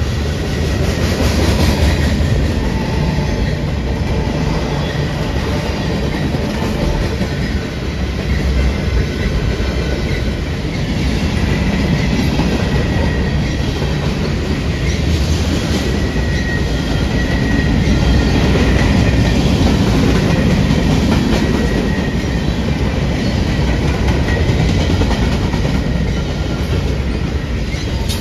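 Freight cars rolling past on steel wheels: a steady rumble and clatter over the rails, with a faint high squeal from the wheels coming and going.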